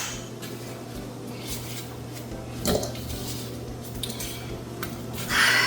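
Knife cutting peeled yam into small pieces, with scattered clicks and knocks of the blade and pieces against a dish, and a louder clatter near the end, over a steady low hum.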